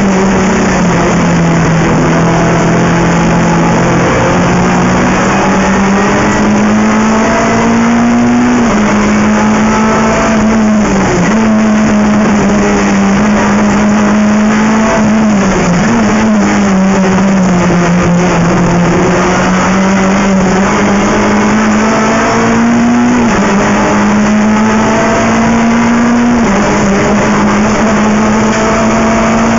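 Renault Clio III Cup race car's 2.0-litre four-cylinder engine heard from inside the cabin at race pace. Its pitch climbs under acceleration and drops sharply at several quick gear changes, over a constant rush of wind and road noise.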